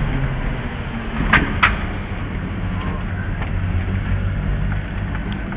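1994 Suzuki mini-truck's small three-cylinder engine running steadily at low speed, heard from inside the cab. Two sharp clicks sound about a second and a half in.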